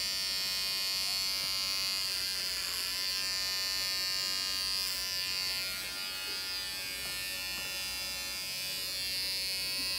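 Electric hair trimmer running with a steady buzz as it clips a boy's short hair.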